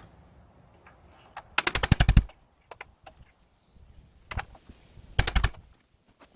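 Two short bursts of rapid metal-on-metal strikes, about a dozen blows a second, with a few faint single clicks between them. The strikes come from driving a new lower ball joint into its socket in an aluminum ATV strut arm.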